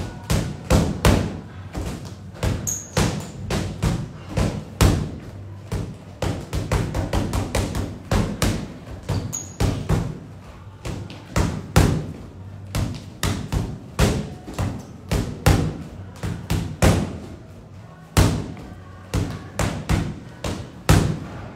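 Boxing gloves punching a free-standing punching bag in fast flurries of thuds, several a second, with a couple of short pauses, during an all-out burnout round.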